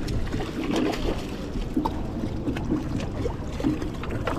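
Steady rushing noise of river water and wind on the microphone, with scattered small clicks.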